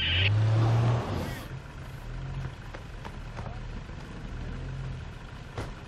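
A four-wheel-drive vehicle's engine revs up over the first second, then runs at lower revs, rising and falling. A high steady whine stops just after the start, and there is a sharp click near the end.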